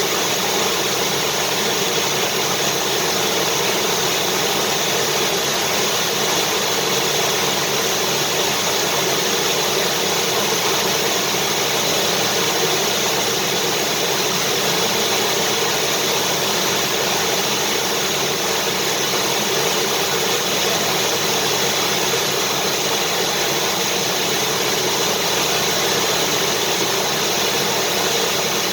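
Vacuum cleaner running steadily: an even rushing noise of motor and airflow with a faint steady hum, with no change in pitch or level.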